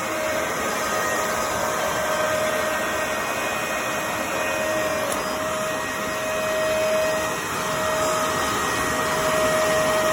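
Bissell MultiClean Allergen Pet upright vacuum (model 2999) running steadily, a constant whine over the rush of its suction.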